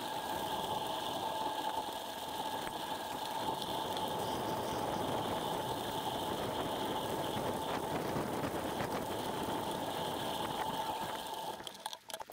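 Bicycle rolling along a gravel path: steady tyre and road noise with some rattle, with a faint steady high tone running under it. It cuts out abruptly near the end.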